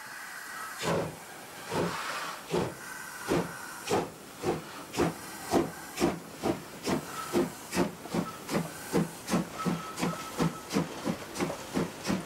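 DR class 52 two-cylinder steam locomotive (52 8039) starting a freight train. Its exhaust chuffs come about a second apart at first and speed up steadily to roughly three a second as it gathers speed. Steam from the open cylinder drain cocks hisses throughout.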